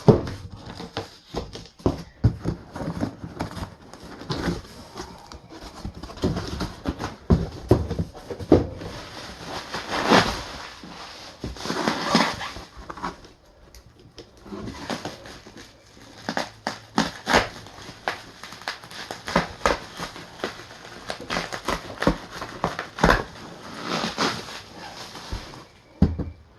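Cardboard box being opened and unpacked by hand: irregular rustling, ripping and scraping of cardboard and packing, with scattered knocks, and a few longer tearing rasps near the middle.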